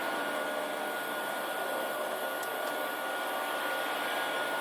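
Steady whirring of machine cooling fans, with a faint steady high whine running through it.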